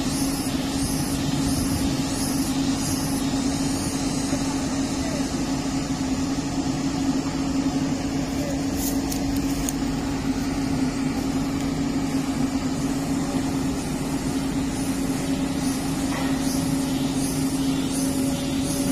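Komatsu PC200-8 excavator's diesel engine running at a steady, even speed with a constant low hum. A faint high-pitched pulsing, a little under two beats a second, runs over it near the start and again near the end.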